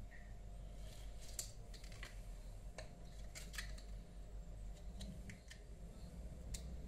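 Faint, scattered small clicks and ticks at irregular intervals, about ten in all, from hand work on a Samsung Galaxy Grand Prime (SM-G530) during a touchscreen replacement, over a low steady hum.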